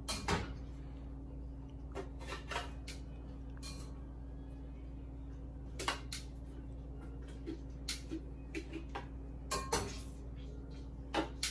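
Metal kitchen tongs clinking and knocking against a pot and a plastic blender jar as boiled tomatoes are moved from one to the other: a dozen or so scattered sharp clicks, a few close together, over a steady low hum.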